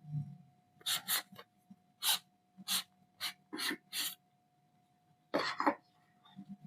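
Packaging being handled: a quick run of about eight short rustling scrapes, then two more a little later.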